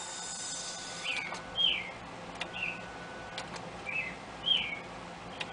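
A bird chirping five times, short falling chirps at irregular spacing, over a faint steady hum, with a few sharp clicks in between.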